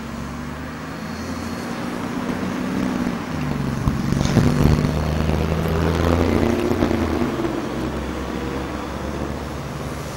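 Peppercorn A1 Pacific steam locomotive 60163 Tornado creeping slowly forward under steam, giving a steady low rumble with a hiss of steam over it. It grows louder towards the middle, where there are a few sharp clicks, then eases off.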